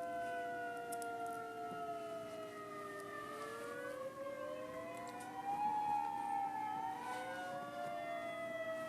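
Outdoor tornado warning sirens wailing during a test, more than one at once: their tones glide slowly up and down and cross over one another.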